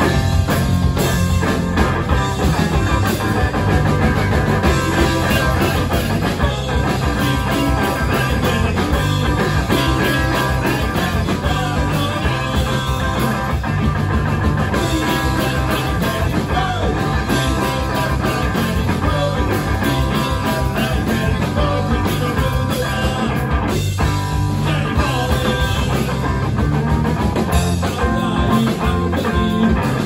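Rock music played continuously at a steady loud level, with electric guitar and a drum kit.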